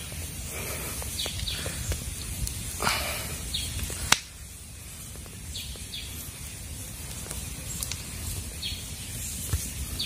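Wood campfire burning and crackling, with a sharp pop about four seconds in, while birds give short chirps now and then.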